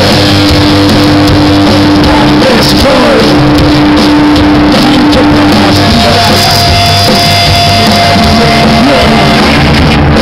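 Rock band playing live and loud, with drums, guitars and singing. A long note is held through the first half, and a higher one is held for about three seconds near the end.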